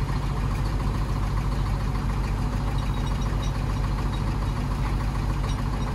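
An engine running steadily at idle: a low, even drone that holds the same pitch throughout.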